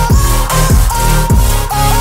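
Background electronic music with a heavy bass beat and repeated falling pitch sweeps, about three in the space of two seconds.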